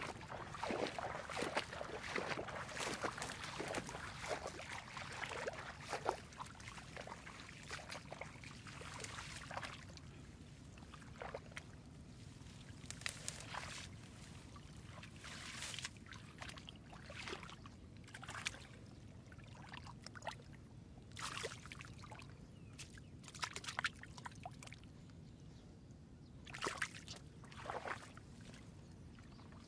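Water splashing and sloshing in short, irregular bursts, busier for the first several seconds and then sparser.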